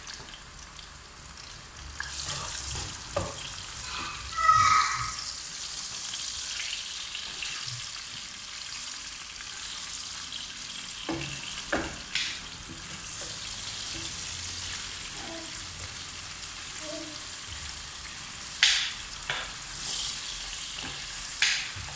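Sliced onions sizzling steadily in hot oil in a pot, with a wooden spoon stirring them and now and then knocking sharply against the pot.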